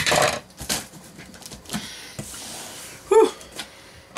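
Fingers scraping and picking at brown packing tape on a cardboard box, then tape peeling off the cardboard, with a short pitched squeak about three seconds in.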